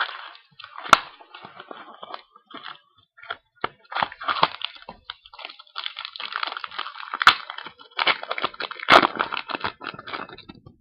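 Crinkling and rustling of a trading-card box's packaging being opened and handled, with a few sharp snaps of cardboard or plastic.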